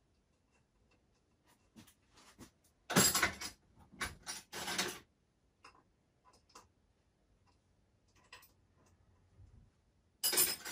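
Small hard parts and tools being handled, clicking and clinking. There are two loud bouts of rattling clatter, one about three seconds in and another near the end, with faint scattered ticks between them.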